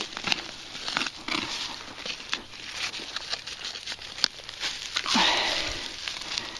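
Digging by hand in soil: irregular scraping, crunching and clicking of dirt and debris, with a louder scrape about five seconds in.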